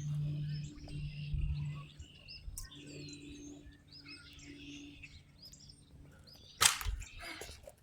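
Small birds chirping and calling over a low, steady drone that fades away within the first few seconds. A single sharp knock comes about six and a half seconds in.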